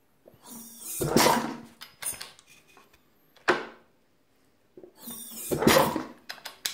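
Vintage Husqvarna 500 motorcycle engine being kicked over twice, each stroke a noisy mechanical surge lasting about a second and a half, with a single sharp knock between them. The kicks test a newly fitted pitbike ignition that sparks at very low cranking speed.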